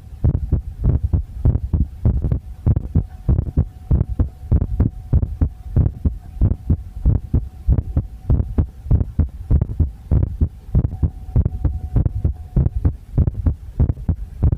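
Human heartbeat thumping at a steady, regular rhythm, with a faint steady hum underneath that fades out near the end.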